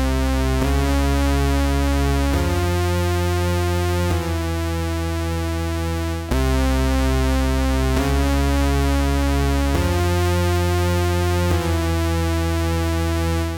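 Studio Electronics SE-1 analog monosynth playing a dry bass line of held low notes, one note at a time, changing about every second and a half. A phrase of four notes is played and then repeated, and the sound stops right at the end.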